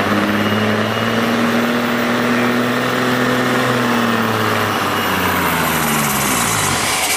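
Diesel engine of a semi truck pulling a weight sled under heavy load, running loud at steady high revs. Near the end the revs fall away as the truck slows and the pull ends.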